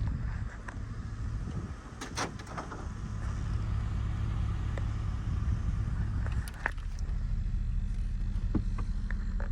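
A vehicle engine idling as a steady low hum that shifts in tone about two-thirds of the way through, with a few light clicks and knocks over it.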